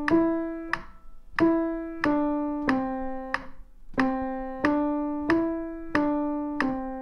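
Acoustic piano played one note at a time by the right hand: a slow, evenly paced beginner's melody stepping among the notes around middle C, about one and a half notes a second, each note ringing and fading before the next.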